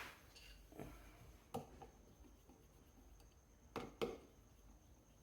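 A few faint knocks and clicks from a washing machine's opened gearbox case being handled, two of them close together near the end, over quiet room tone.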